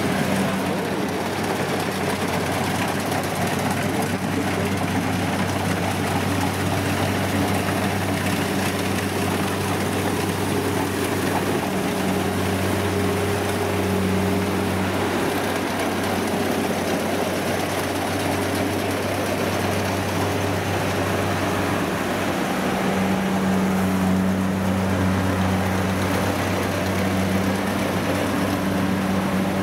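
Kubota DC70 combine harvester's diesel engine running steadily under load while the machine cuts and threshes rice, a steady engine drone with a broad mechanical noise from the working header and threshing gear over it.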